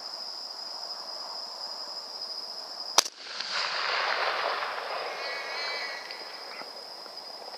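A single rifle shot about three seconds in, sharp and loud, followed by about three seconds of noisy tail that swells and fades. Crickets trill a steady high tone underneath.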